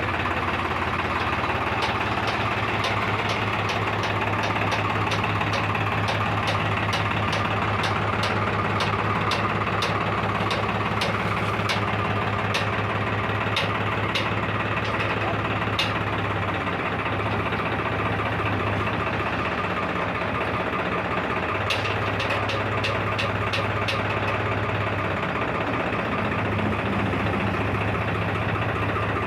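New Holland 5510 tractor's diesel engine running steadily, with a run of sharp metallic clicks about two a second. The clicks stop partway through and return briefly near the end.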